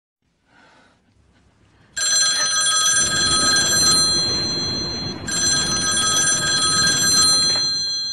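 Push-button desk telephone ringing: its bell starts about two seconds in and gives two long rings, the second fading away near the end.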